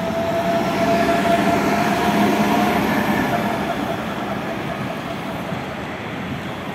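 Tatra KT8D5 articulated tram pulling away and passing close by, its wheels running on the rails, with a steady high whine for the first three seconds. The sound slowly fades as the tram moves off.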